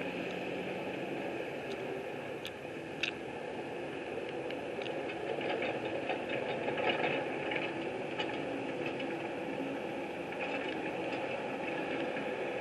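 Engine running steadily at a distance, with light rattles and a few sharp clicks.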